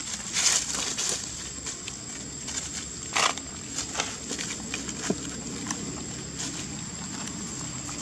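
Long-tailed macaques scuffling and rolling in dry leaf litter: irregular rustles and small crackles, with a louder rustle about three seconds in.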